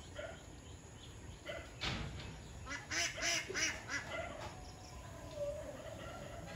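Domestic ducks calling in a group: a few scattered short calls, busiest around the middle, then one longer call falling slightly in pitch toward the end.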